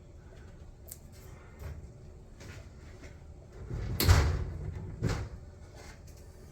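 Red oak cabinet door closing against its magnetic catch: a few light clicks, then a solid knock with a low thud about four seconds in and a second, sharper knock about a second later.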